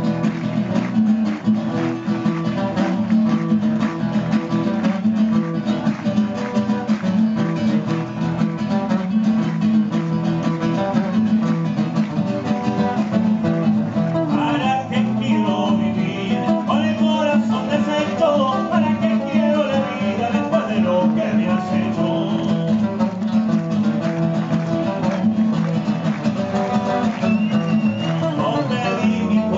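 Two acoustic guitars strumming and plucking a chacarera, the Argentine folk dance rhythm. About halfway through, a man's voice comes in singing over the guitars.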